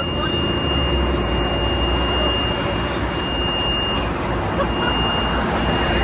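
Steady noise of heavy traffic passing close by on a busy highway, with a deeper rumble from a heavier vehicle going past about a second in. A thin, steady high-pitched whine runs over it.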